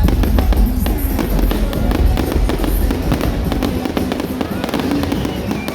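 Fireworks going off in quick succession: many sharp cracks and pops over a continuous low booming rumble, with music playing underneath.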